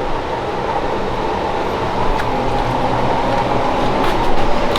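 Steady machine noise, a constant whir with a faint steady high tone, like a fan or motor running.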